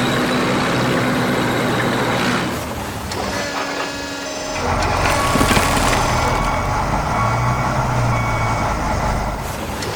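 Heavy construction vehicle engine running with a reversing beeper sounding over it.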